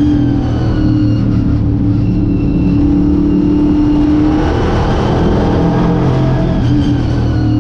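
Late model race car's V8 engine heard from inside the car at racing speed, running hard. The engine note shifts about halfway through, as with a throttle change, then settles back near the end.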